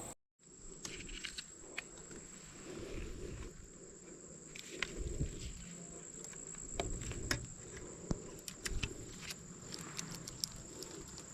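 A steady, high-pitched insect drone, with scattered light clicks and low rustles throughout.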